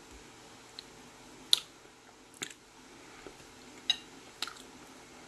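Metal fork clicking and clinking against a plate of saucy chicken pieces: about five sharp clicks, the loudest about a second and a half in and again near four seconds, where the fork is set down on the plate with a brief ring.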